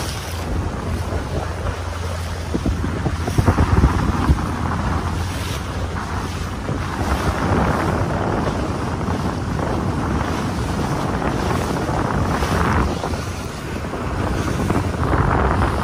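Wind noise on the microphone of a moving boat, over a steady low hum and the wash of water. The wind buffets harder about three to four seconds in.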